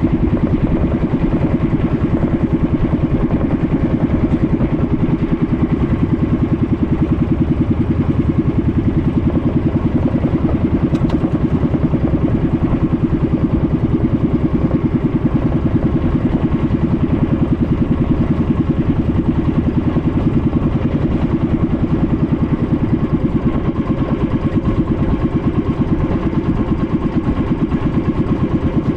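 A small engine running steadily at an even speed, with a rapid, regular firing pulse that does not change in pitch.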